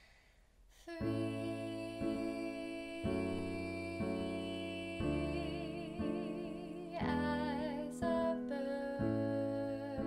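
Electronic keyboard playing chords, a new chord struck about once a second, starting about a second in. From about halfway through, a woman's voice sings over it with vibrato.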